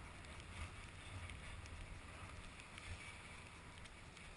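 Faint, steady rushing of skis sliding over packed snow, with a low wind rumble on the microphone.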